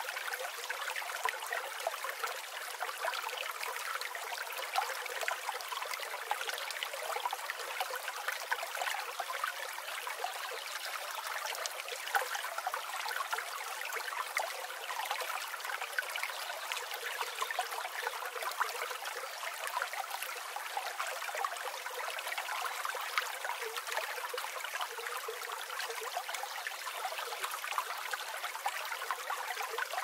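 Forest river flowing steadily: a continuous splashing and trickling of water, with no deep rumble underneath.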